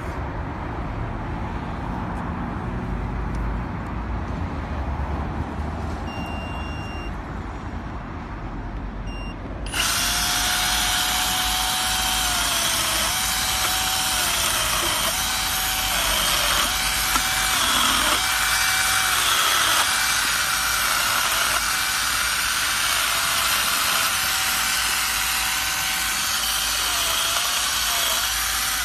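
Low rumble of road traffic, then about ten seconds in a battery-powered electric mini chainsaw starts suddenly and runs, its motor whine dipping in pitch again and again as the chain bites into a tree branch. It cuts off right at the end.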